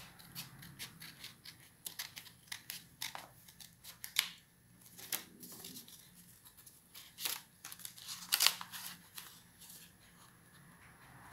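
Small steel scissors snipping through folded black paper: a run of short cuts, with the loudest snips about four seconds in and again about eight seconds in.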